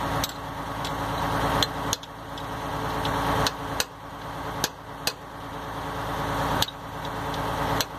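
Sharp metal taps of a small hammer driving a pin against the packing-gland nuts of a piston water pump, about six blows at irregular spacing, loosening nuts on packing that has been running hot. The engine keeps running underneath.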